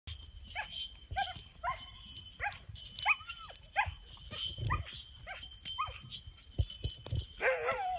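Dog barking in short, high yips, repeated roughly every half second to a second, with one longer drawn-out yelp about three seconds in.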